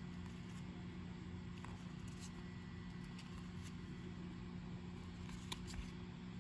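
Baseball trading cards handled and flipped through by hand: a few faint, soft clicks and flicks over a steady low electrical hum.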